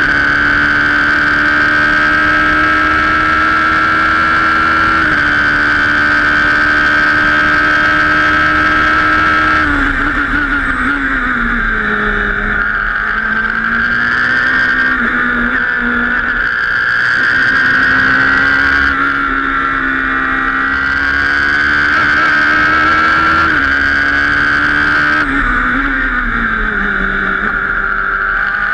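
Radical SR3 RS racing prototype's engine heard from its open cockpit at full racing revs: held high down the straight with a small step down about five seconds in, then falling away about ten seconds in as the car slows for a corner and climbing again as it pulls out. It falls and climbs once more near the end for another corner.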